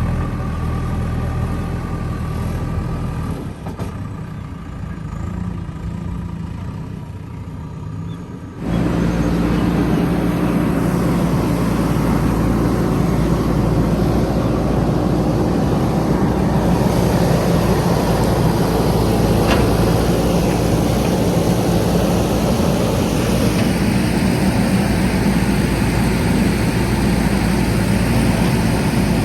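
Diesel engine of a JCB 3DX backhoe loader running steadily. About nine seconds in it turns abruptly louder and rougher and stays that way.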